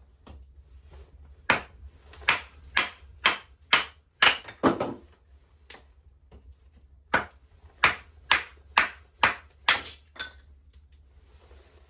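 A hand tool striking wood in two runs of about seven sharp blows, roughly two a second, with a pause of a couple of seconds between the runs.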